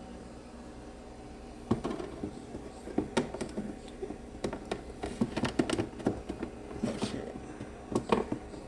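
Irregular clicks, taps and knocks of kitchen utensils and cookware being handled, starting about two seconds in and going on unevenly.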